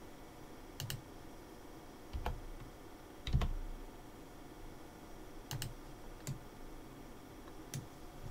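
Scattered computer keyboard key presses and mouse clicks, about six separate clicks, the loudest a little over three seconds in.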